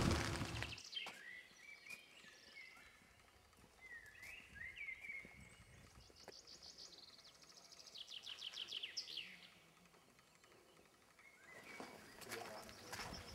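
Songbirds singing faintly: a few short chirps, then rapid trills, over quiet outdoor ambience that grows a little louder near the end.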